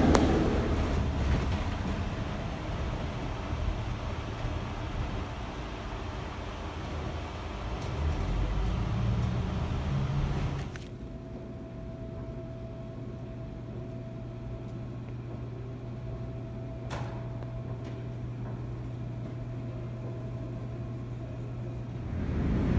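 Airport shuttle bus running, heard from inside the cabin as a road-noise rumble that swells for a couple of seconds near the middle. About halfway through it cuts off abruptly to a quieter steady low hum, with a single click a few seconds later.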